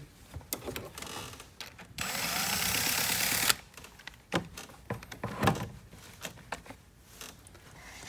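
Handling noise from work at a car battery's terminals and cover. A harsh rasping, rattling noise starts about two seconds in and lasts a second and a half, followed by a few light clicks and knocks.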